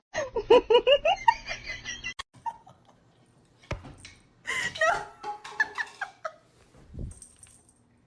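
A person laughing in quick, repeated bursts during the first two seconds, then laughing again a few seconds later, with a single sharp click between.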